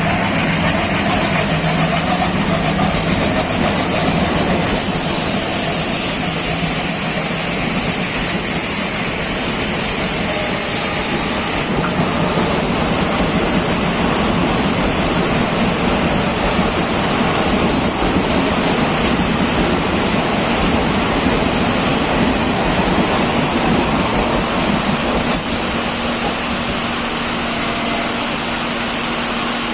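ALCO diesel locomotive engine running with a steady, loud rumble.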